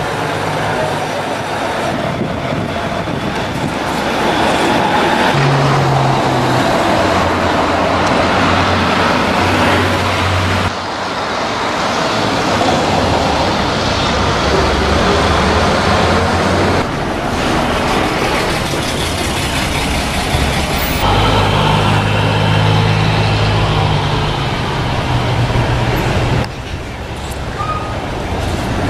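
Diesel city buses, a Hino P-RJ172BA and an Isuzu U-LV324L, running as they pull away and drive past, with traffic noise behind. The engine note steps up and drops back several times as they shift gears. It changes abruptly four times where one clip cuts to the next.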